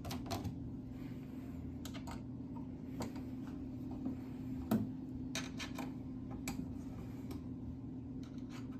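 Allen wrench clicking and tapping against the metal screws of the scrubber's vacuum-motor cover plate as they are unscrewed: scattered light metal clicks, one sharper about halfway through, over a steady low hum.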